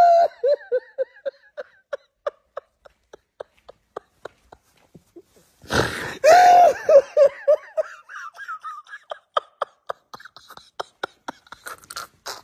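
A man crying: a long wail that breaks into quick sobbing gasps, about five a second, fading away; about six seconds in he wails loudly again, then sobs in short gasps once more.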